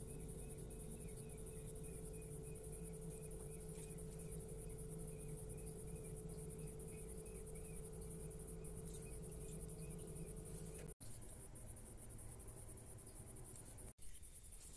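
Crickets chirping steadily in a high, fast trill, with a second insect-like chirp repeating about two to three times a second through the first half. A low steady hum runs underneath and stops after a brief dropout in the sound about two-thirds of the way through.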